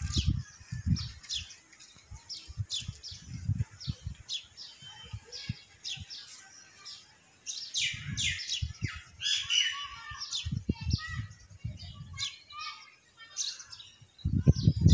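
Small birds chirping: many short, quick calls, often overlapping, throughout. Irregular low rumbling bursts come and go underneath.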